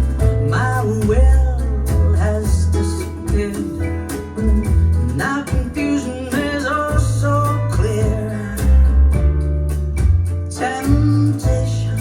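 A song playing through Bowers & Wilkins 606 S3 bookshelf speakers: guitar, heavy bass and drum hits under a singing voice.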